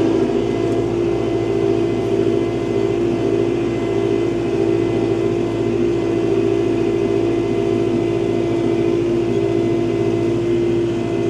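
Kubota tractor's diesel engine running at a steady speed as the tractor backs up, a constant drone with no change in pitch.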